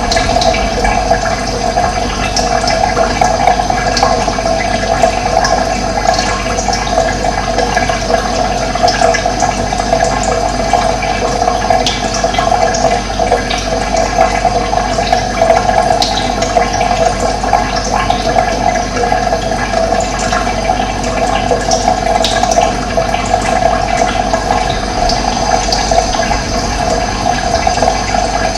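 Steady rush of running water, with scattered short, high bird chirps over it.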